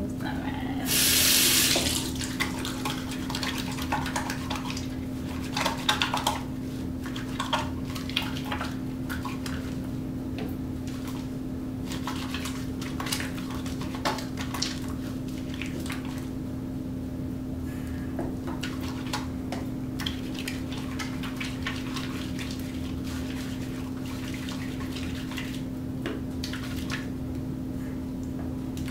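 Soapy hands rubbing and lathering a bar of soap under a thin stream of tap water at a bathroom sink: irregular wet squelching and splashing, with a brief loud rush about a second in. A steady low hum runs underneath.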